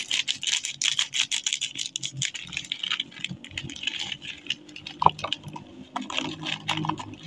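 Plastic-foil snack bag crinkling as it is cut open with scissors, then light puffed corn-ball snacks spilling out onto a cardboard box, a dense run of small clicks and rattles.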